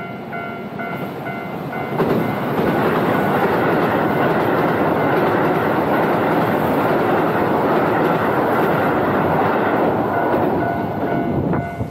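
A level-crossing warning bell rings in a quick repeating ding. About two seconds in, a Keihan electric train passes through the crossing at speed, and the steady noise of its wheels on the rails drowns out the bell. The train noise drops off sharply near the end, and the bell is heard again.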